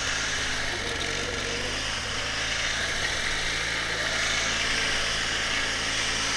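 Murray riding lawn mower's engine idling steadily.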